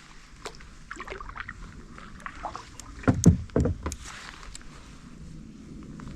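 Knocks and water sounds from a fishing kayak, with a cluster of loud thumps about three seconds in.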